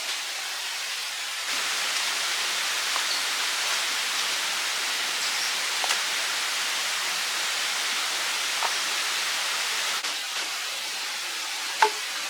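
Running water rushing steadily, a little louder for most of the stretch, with a few light ticks and one sharp click near the end.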